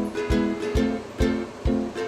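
Background music: a plucked-string instrument playing over a steady beat of about two thumps a second.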